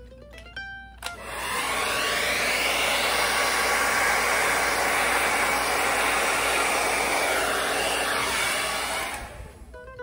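Handheld hair dryer switched on with a click about a second in, then blowing steadily at full power before winding down near the end.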